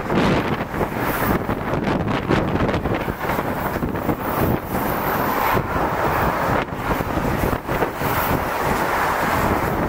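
Container freight train's wagons rolling past at speed close by: a steady loud rush and rumble of steel wheels on rail.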